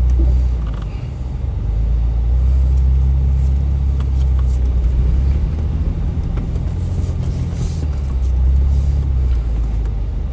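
Off-road Jeep engine running with a steady low rumble.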